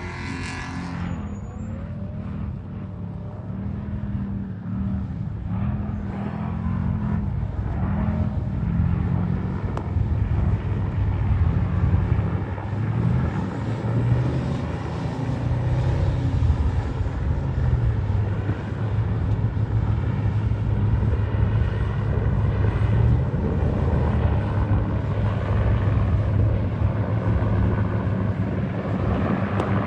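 Off-road race vehicle engine running, its pitch stepping up and down with the revs and growing louder over the first ten seconds, then holding steady.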